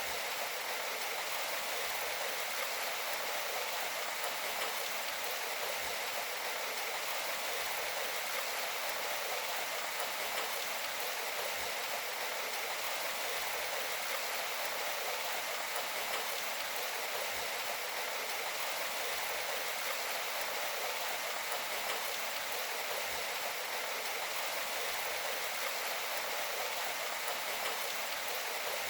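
Steady rain falling: a dense, even hiss of drops with almost no low rumble, unchanging throughout.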